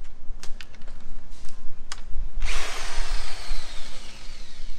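Collomix Xo 55 duo twin-paddle mixer drill, with its two paddles in the air, triggered in a short burst about halfway in. Its motor whine falls away as the paddles spin down. A few handling clicks come before it.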